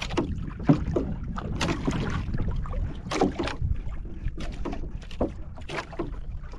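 Small wooden outrigger boat under way on choppy sea: water slapping and splashing irregularly against the hull and bamboo outrigger floats, over a steady low rumble.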